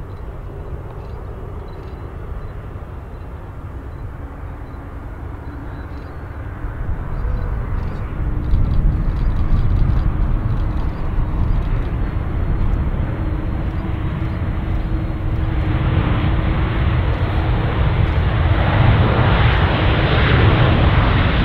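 Aircraft engine noise building from faint to loud as the plane approaches, loudest in the last few seconds, with a steady hum in it from about ten seconds in.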